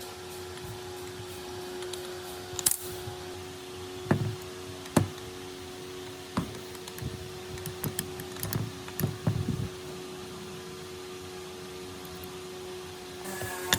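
A series of sharp knocks and clicks of metal parts and tools being handled during the restoration of a chisel mortiser, over a steady hum. Near the end a louder running sound starts up.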